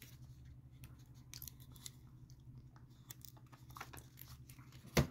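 Faint wet mouth clicks and lip smacks of someone eating a mouthful of soft Greek yogurt, with one sharper click near the end. A steady low hum runs underneath.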